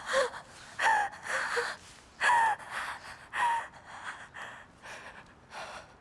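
A woman sobbing hard: four strong, falling cries in the first few seconds, with gasping breaths between them. The sobs then grow fainter.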